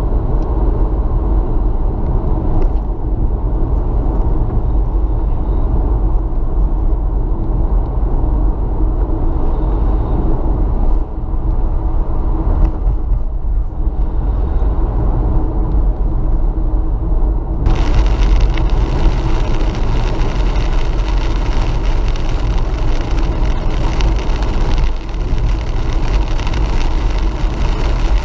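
Car driving along a road, heard from inside the cabin: steady engine and tyre rumble. About two-thirds of the way through, a louder hiss comes in suddenly and carries on.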